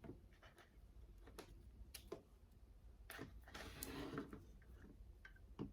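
Near silence with a few faint clicks of small plastic toy pieces being handled and fitted together, and a soft rustle about three seconds in.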